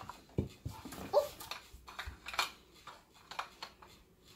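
Plastic play food and toy dishes being handled at a toy kitchen: a string of short clattering knocks and taps.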